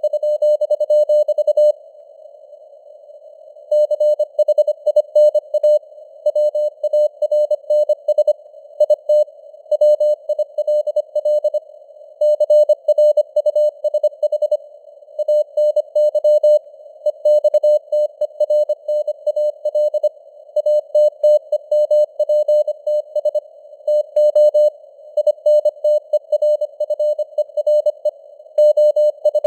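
Morse code sent at 25 words per minute: a single-pitched beep keyed in dots and dashes over a narrow band of hiss that simulates radio noise. There is a pause of about two seconds near the start, then the keying runs on.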